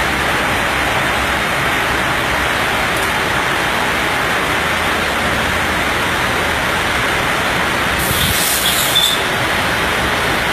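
A steady, even rushing noise with no clear pitch or rhythm, and a brief higher hiss about eight seconds in.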